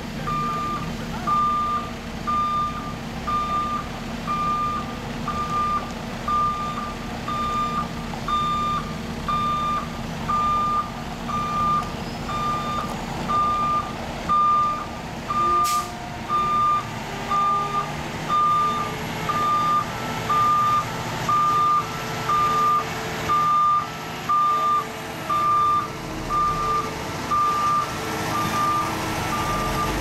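Backup alarm on paving equipment beeping steadily, about one beep a second, over a diesel dump truck engine running. The engine grows louder in the second half, and there is a single sharp click about halfway through.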